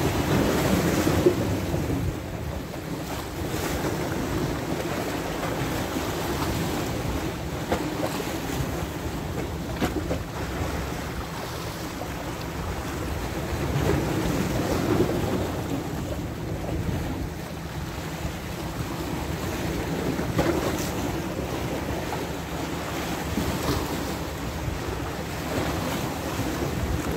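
Sea waves washing against shore rocks, with wind buffeting the microphone: a steady rushing noise that swells and eases a few times.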